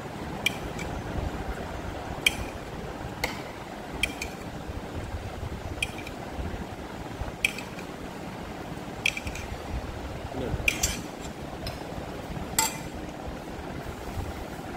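Tableware clinking during a meal: spoons knocking against a glass serving bowl and plates in about a dozen irregular, sharp clinks. A low steady rumble runs underneath.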